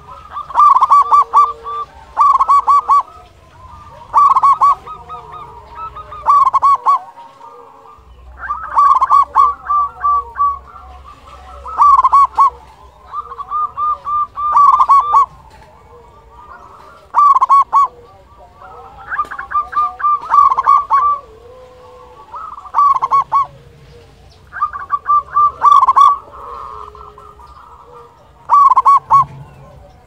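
Zebra dove (perkutut), a local Indonesian bird, singing loudly: about a dozen phrases of rapid, staccato cooing notes, repeated every two to three seconds with short pauses between.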